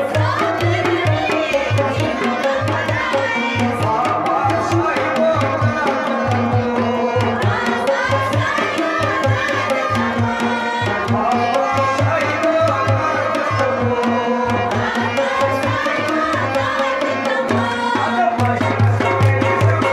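Kashmiri folk song performed live: a male voice sings over a steady rhythm from a hand drum and a clay pot (nout) played as percussion.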